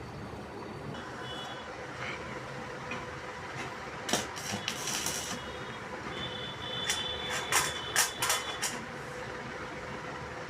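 Metal clanks and knocks: a single sharp strike about four seconds in, then a quick run of several strikes with a ringing tone under them near the end, over a steady workshop background noise.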